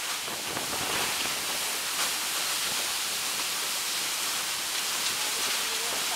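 Typhoon wind and storm-surge floodwater rushing, with driving rain: one steady, unbroken rush of noise.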